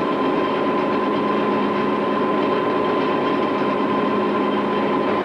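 Hydraulic power unit running: an electric motor driving a hydraulic pump, a steady hum with a constant high whine.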